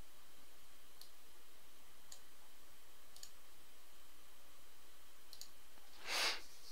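Faint computer mouse clicks, about a second apart, with one quick double click. Near the end comes a brief, louder rush of noise.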